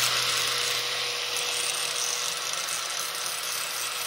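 Angle grinder with an abrasive disc grinding down a TIG weld on a steel bandsaw blade: a steady grinding hiss over the constant whine of the motor.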